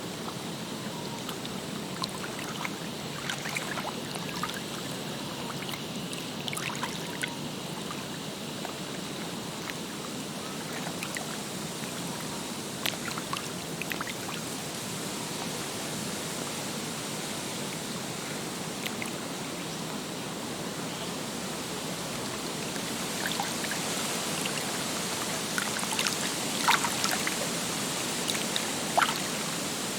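Lake water lapping and trickling at the shore, a steady wash with small drips and splashes scattered through it, busier and a little louder from about two-thirds of the way in.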